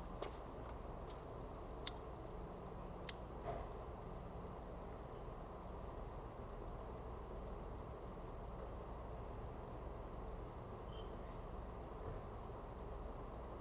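Crickets chirping faintly over a steady low background hiss. A few sharp clicks in the first four seconds, two of them loud, as a pocket lighter is struck.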